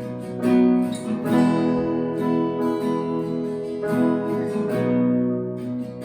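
Acoustic guitar strumming sustained chords in a steady rhythm, with no singing.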